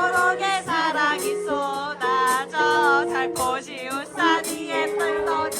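A live band song: a singer's melody over sustained held notes from the accompaniment, with no words recognisable.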